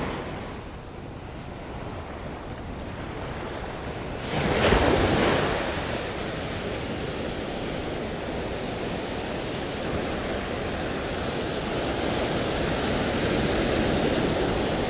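Ocean surf washing in close: breaking waves and foaming whitewater rushing over the shallows, with a louder rush of surf about four seconds in.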